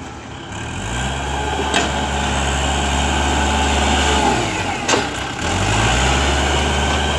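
Kubota L5018 tractor's diesel engine working under load while its front dozer blade pushes soil. It picks up revs about half a second in, eases off around four to five seconds and pulls up again near six seconds, with two sharp knocks, about two seconds in and again near five seconds.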